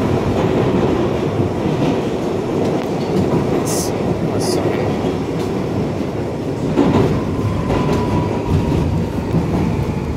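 Interior running noise of a New York City Subway R62A car on the 1 line: a steady loud rumble of wheels on rail with clickety-clack, as the train runs into a station. Two short hisses come about four seconds in, and a faint thin tone rises over the rumble a little later.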